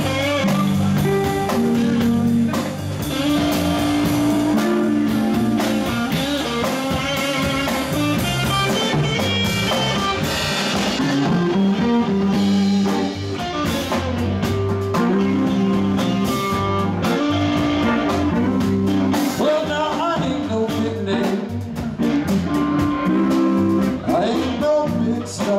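Live blues band playing: electric guitar over a drum kit keeping a steady beat.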